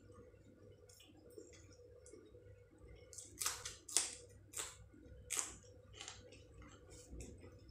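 A person eating rice and curry by hand: soft wet mouth clicks while chewing, with about four louder smacks in the middle.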